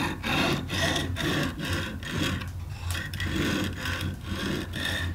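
Lansky extra-coarse sharpening stone rubbed back and forth along the edge of a clamped filleting knife: a rapid rasping scrape, about three strokes a second, with a short pause about two and a half seconds in. This is the coarse first stage of sharpening, which lays even scratch marks along the whole blade.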